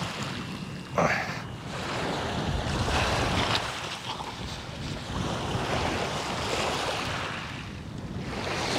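Small waves washing in and out at the water's edge, swelling every two to three seconds, with wind buffeting the microphone. There is a brief sharp louder burst about a second in.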